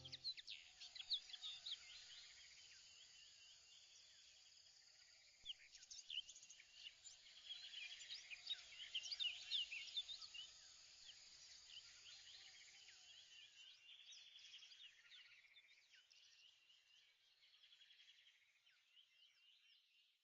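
Faint outdoor ambience of birds chirping: many short chirps and trills over a soft hiss, fading out toward the end.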